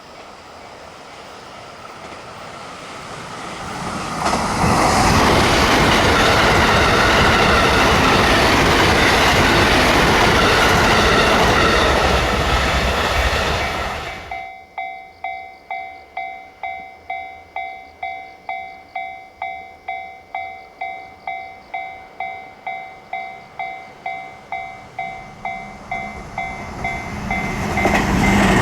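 A train passes over the level crossing: loud rushing wheel-and-rail noise builds over the first few seconds and stops abruptly about halfway. Then the crossing's warning bell rings on its own, an even clanging about twice a second, until another train starts to come up near the end.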